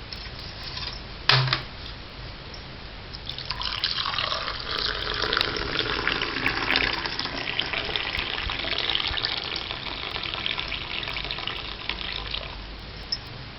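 Hot masala milk being poured in one continuous stream into a cup or tumbler for about nine seconds. A single sharp knock of a vessel comes shortly before the pour starts.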